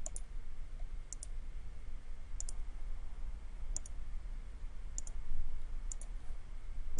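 Computer mouse button clicking about six times, roughly one click every second or so, each a quick double tick of press and release, as sketch segments are picked off with a trim tool. A low steady hum runs underneath.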